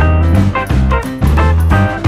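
Background music with a steady bass beat and plucked guitar notes, in a swing or jazz style.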